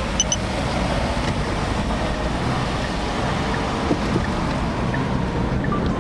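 Steady road and engine noise inside the cabin of a taxi driving through city traffic, with two short high electronic beeps near the start.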